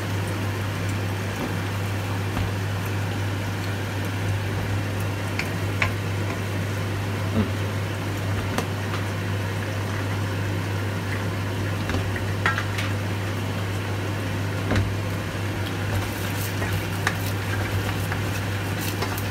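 Eggs and chicken sizzling in oil in a nonstick wok, with a steady low hum underneath. A wooden spatula taps and scrapes the pan now and then, more often near the end as the setting eggs are broken up.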